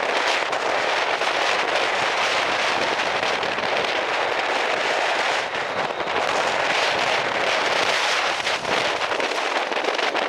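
Strong onshore wind and breaking surf: a steady, dense rush full of fine crackling, with no single loud event.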